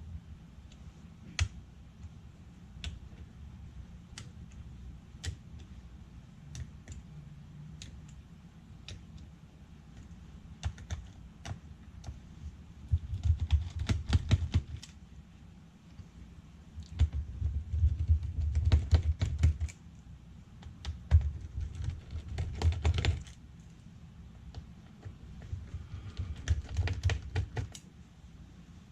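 Clicking and light rattling of hand-tool work on a Dell Latitude 7480 laptop's case: scattered single clicks at first, then several runs of rapid clicking with handling rumble.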